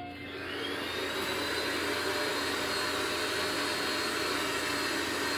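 Xerox WorkCentre 7120 copier's motors and fans starting up: a whine that rises over the first second, then settles into a steady whir with one high tone.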